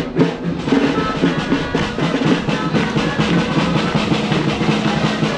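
Drum-led parade music: fast, even drum strokes with a held melody line above them.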